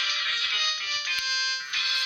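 A myPhone 6310 mobile phone playing a ringtone melody through its loudspeaker. The tune moves in quick short notes, holds one note for about half a second past the midpoint, and then comes back in full just before the end.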